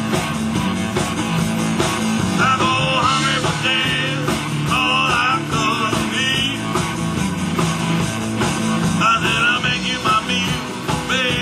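Live blues-rock band playing: two electric guitars over a drum kit, with a wavering, bending lead line on top.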